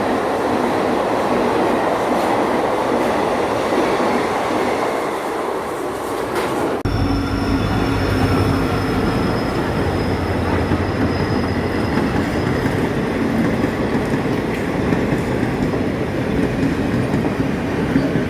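Trains running through a suburban Mumbai station, a continuous rushing rumble of wheels on track. About seven seconds in the sound changes abruptly to another train, with a deeper hum and a thin, steady high squeal from the wheels.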